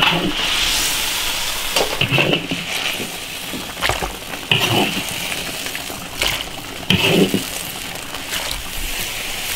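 Metal ladle scooping broth and stew out of a wok, the liquid sloshing and splashing in three or four scoops a couple of seconds apart.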